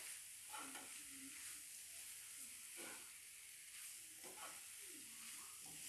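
Faint sizzling of grated radish, peas and tomato cooking in a frying pan, with a few short strokes of a steel spatula stirring through the vegetables, about one every second and a half.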